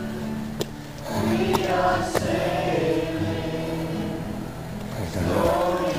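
Background music of choral singing, long held notes shifting slowly in pitch, with a couple of sharp clicks.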